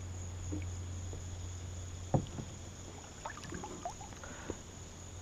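Quiet moment in a plastic fishing kayak on still water. Insects drone high and steady over a low steady hum. There is one sharp knock about two seconds in, then a few small clicks and light handling noises.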